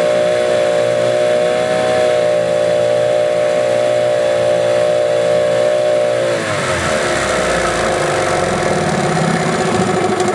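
Yamaha 8 hp outboard motor running steadily at a fast speed. About six and a half seconds in its speed drops and it runs lower and unevenly. The motor won't idle unless choked, which the owner puts down to the fuel pump diaphragms or a dirty carburetor.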